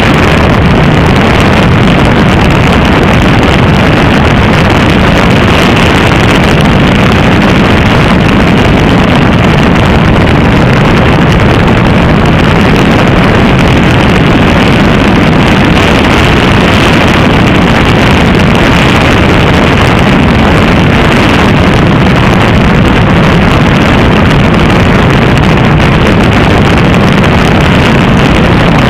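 FPV quadcopter's electric motors and propellers heard loud and close, a steady buzzing drone mixed with rushing wind on the microphone.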